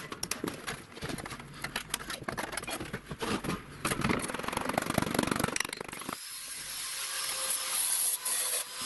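Thin sheet metal being scraped and cut by hand along a scored outline, a dense run of clicks and rasping as the cut-out piece is worked free. About six seconds in this stops abruptly and gives way to a steady hiss.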